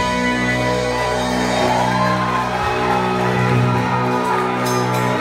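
Live band of acoustic guitar, keyboard, drums and bass guitar holding one long sustained chord, the closing chord of the song.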